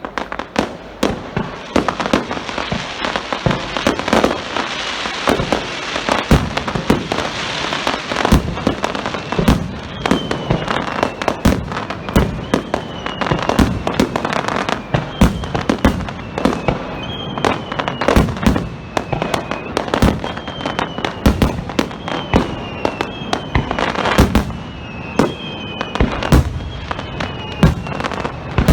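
Star mine fireworks barrage: rapid launches and bursts, a steady run of bangs and booms with crackling early on. From about a third of the way in, short falling whistles repeat roughly once a second over the bangs.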